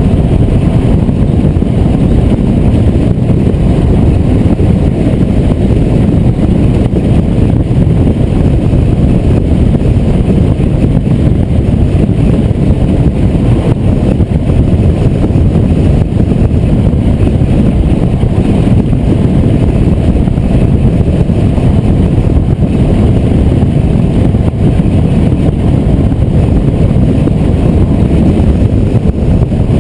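Car cruising at highway speed: a steady, loud rumble of wind and tyre-road noise on a car-mounted camera's microphone.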